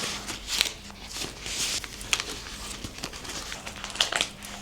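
Paper sheets rustling and crinkling as they are handled and flipped, in irregular soft rustles with a few sharper crisp ticks.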